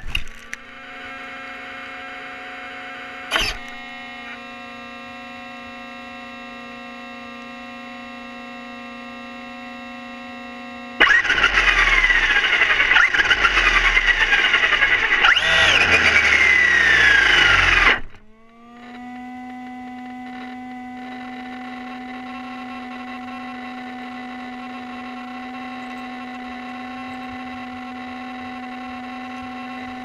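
Traxxas Rustler RC truck's electric motor and drivetrain whining steadily while the car lies flipped upside down. About 11 seconds in it revs much louder for some seven seconds, its pitch rising and falling repeatedly and dropping away as it winds down, then settles back to the steady whine. A single click sounds about three seconds in.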